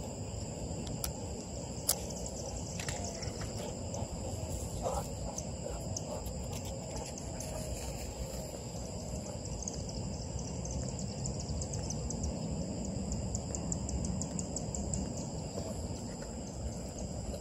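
Outdoor ambience dominated by a steady high chirring of insects, typical of crickets, with a low steady rumble beneath and one sharp click about two seconds in.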